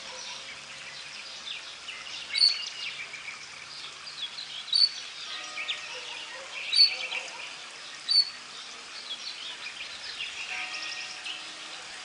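Goldfinch × canary hybrid (mule) singing a fast twittering warble that mixes goldfinch song with other calls. Four sharp, loud high notes stand out, about every two seconds.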